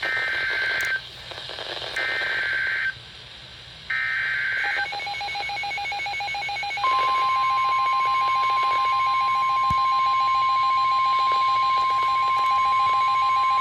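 Emergency Alert System activation signalling a severe thunderstorm warning: three short bursts of warbling digital header data about two seconds apart, then the attention alarm, a steady tone that starts about five seconds in and is joined by a louder, higher steady tone about two seconds later.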